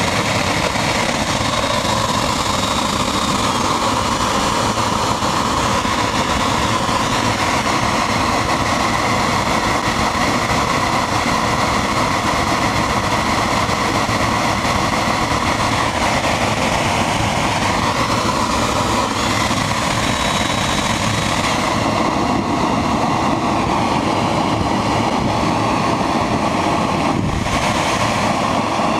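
Homemade electric jet engine running: a brushless electric motor spins a centrifugal compressor feeding a kerosene-burning combustion chamber. It makes a loud, steady rushing roar with faint high whining tones in it.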